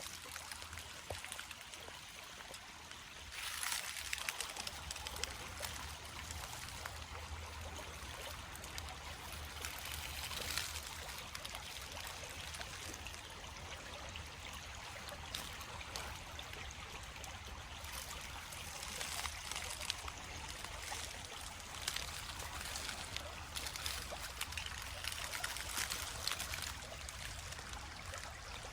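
A small creek trickling and running over its bed in a steady wash, swelling a little louder now and then.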